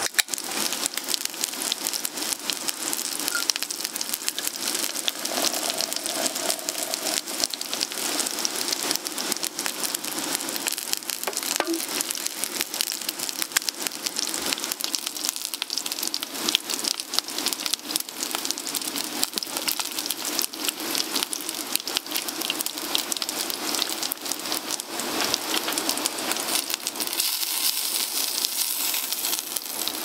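Steady rain, a dense, even spread of many small drop hits on a nearby surface.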